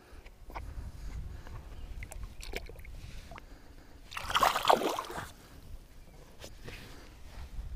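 A largemouth bass released into shallow lake water, making one splash about four seconds in that lasts about a second. A few small knocks come before it.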